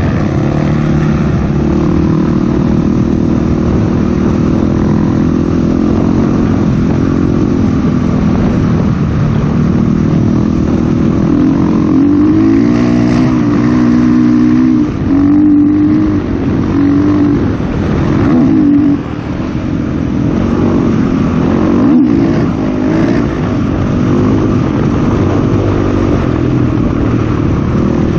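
Dirt bike engine running under throttle as it is ridden along a sandy trail, its pitch rising and falling with the revs through the middle stretch. The sound drops briefly twice, about 15 and 19 seconds in, as the throttle is rolled off.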